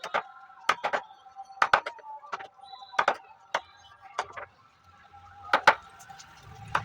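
Irregular sharp knocks on wood, about a dozen, some in quick pairs, over a faint steady whine.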